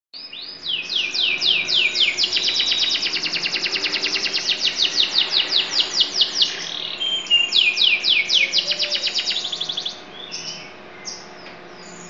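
Yellow domestic canary singing: fast trills of rapidly repeated falling notes, breaking off briefly past the halfway point and then picking up again. The song stops about ten seconds in, leaving a few soft notes.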